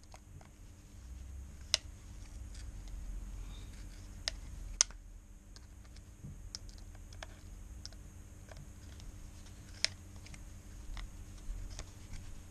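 Needle-nose pliers working a stripped iPhone bottom screw loose, giving scattered sharp metal clicks, a few louder ones among many small ticks, over faint handling noise.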